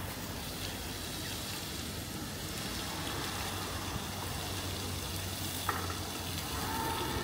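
Fishing catamaran motoring into harbour: a steady low engine hum under the hiss of its churning wash, with breeze on the microphone.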